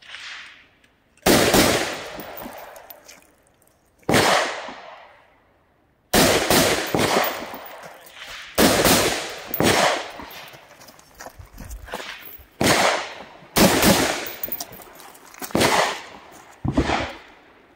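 Delton Sierra 316 AR-15 rifle fired about a dozen times, in single and paired shots spaced unevenly: a few seconds apart at first, then about a second apart. Each shot trails a long echo.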